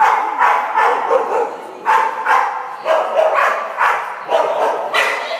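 Small dog barking over and over while running an agility course, about two sharp barks a second, ringing in a large hall.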